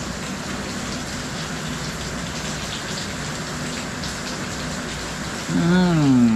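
Steady rain falling, an even hiss. About five and a half seconds in, a louder pitched sound slides down in pitch for about a second.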